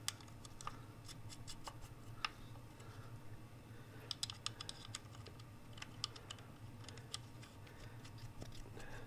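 Faint, irregular light clicks and taps of small metal parts being handled at a Ford 5.0 connecting rod's cap and nuts, with small clusters of clicks about four and six to seven seconds in, over a steady low hum.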